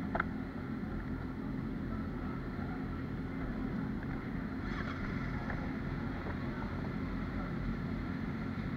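Sport motorcycle engine idling steadily, a low even rumble, with a brief click at the start and a short higher-pitched sound midway.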